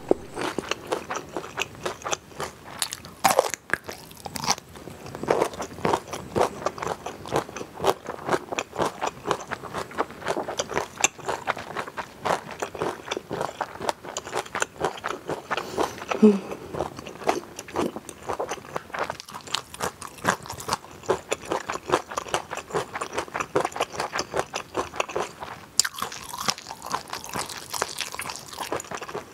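Crunching and chewing of yellow pickled radish (danmuji), a dense, irregular run of crisp crunches.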